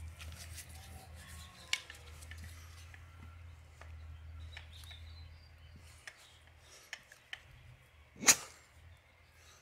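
Brake caliper piston and its new rubber seals being pushed and wiggled into the caliper bore by hand: scattered small rubbing and clicking, with one sharp click early on and a louder sharp knock near the end. A low steady hum runs underneath and stops about two-thirds of the way in.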